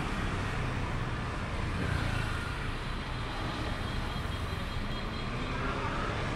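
Engine and road noise of a moving red Thong Lo passenger bus heard from on board: a steady low engine drone under even traffic noise.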